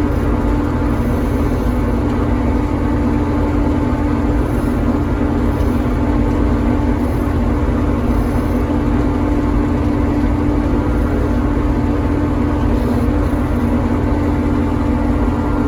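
Dania D5500 forage harvester running while chopping maize: a loud, steady machine drone with a strong even hum over a low rumble.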